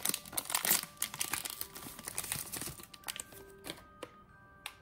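Thin plastic blind-box bag crinkling loudly as it is pulled open and off the figure for the first three seconds or so, followed by a few light clicks from handling the small vinyl figure.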